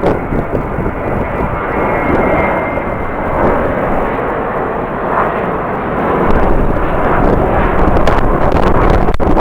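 Jet airliner engines running, mixed with strong wind buffeting the microphone; the noise grows louder from about six seconds in.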